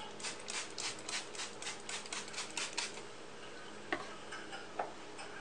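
Hand-pumped plastic spray bottle squirted rapidly, about four hissing sprays a second, stopping about three seconds in. Then two single sharp clicks.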